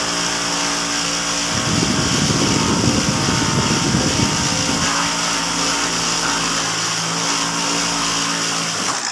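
High-speed sewing machines running: a steady motor hum and hiss, with a louder, rougher stretch from about one and a half to five seconds in.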